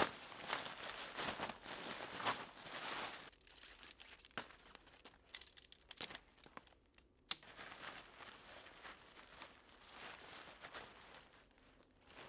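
Nylon fabric of a Vango TBS Micro 200 tent rustling and crinkling as it comes out of its stuff sack, then light clicks from the metal tent poles being handled, with one sharp click about seven seconds in, and more fabric rustling after it.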